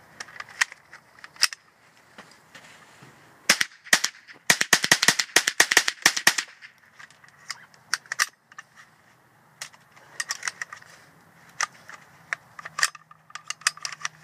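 A .22 GSG 522 rifle firing: scattered single shots, then a fast string of shots from about three and a half to six and a half seconds in, then more single shots spaced out toward the end.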